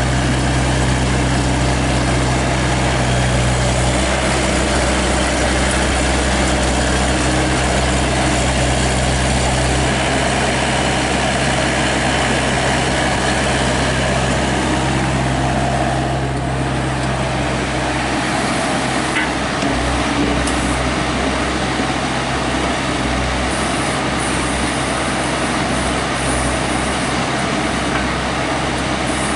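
GroundHog BH30D mini excavator's engine running steadily while the machine digs dirt, its note shifting several times as the hydraulics are worked.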